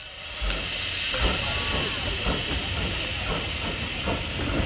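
Small 0-4-0 tank steam locomotive on the move with its wagons: a steady hiss of steam coming up about half a second in, over irregular low chuffs and clanks.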